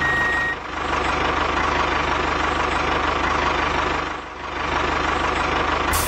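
Truck engine running steadily with a fast low chugging pulse, dipping briefly just after the start and again a little past four seconds. A high beep tone sounds over it in the first half second.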